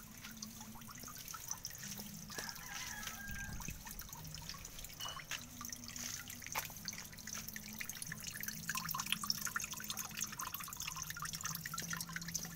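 Water dripping and trickling into a small pond: many small, irregular drips over a faint low hum.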